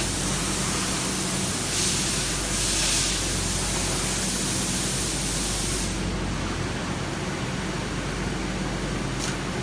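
Robot-loaded tool-grinding machine cell: a steady machine hum under a loud hiss that cuts off about six seconds in. A brief hiss comes again near the end.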